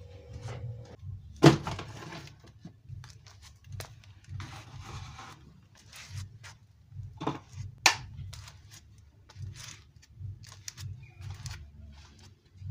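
Household items being handled and set down in a kitchen: scattered clicks and knocks, two sharper knocks standing out, one about a second and a half in and one about two-thirds through, with a brief rustle near the middle.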